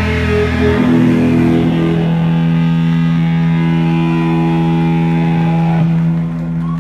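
Live band's electric guitars holding a loud distorted chord that drones steadily, ringing out at the end of a song after the drums stop, and dropping off a little near the end.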